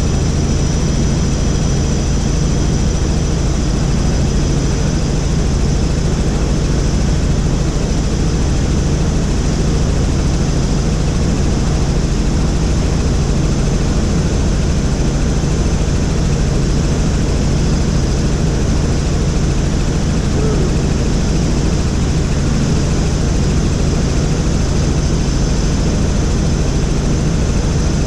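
Helicopter in flight, its engine and rotor noise running steadily as a constant low drone with a thin high whine above it.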